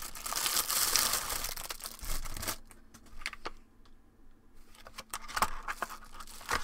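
Clear plastic packaging crinkling and rustling as a small boxed item is unwrapped and handled. The rustling is loudest for the first two and a half seconds, then thins to a few scattered crackles and clicks.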